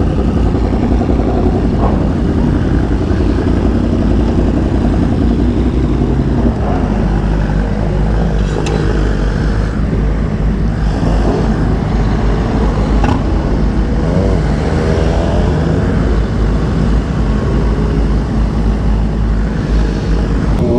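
Sport motorcycle engines running at low speed in a group of bikes, with a steady deep exhaust note. About two-thirds of the way through, an engine revs briefly, its pitch rising and falling.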